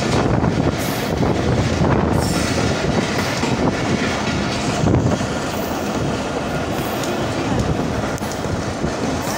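Mohenjo Daro Express passenger train running at speed, heard from aboard: a steady rumble and rattle of its wheels on the rails, with a clickety-clack through it.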